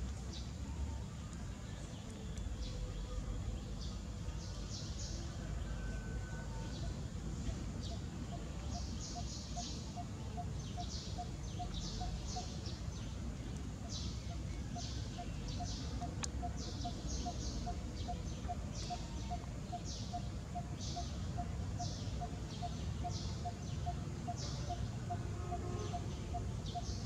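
Outdoor wildlife ambience: short high chirps, about one or two a second, over a steady low rumble, with a rapid even pulsing call joining about eight seconds in.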